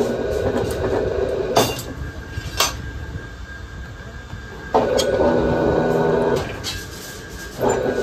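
Electric rebar bending machine bending steel rebar into stirrups. Its geared turntable whines in short spells of a second or two, starting and stopping about every three seconds, with sharp metal clanks between spells.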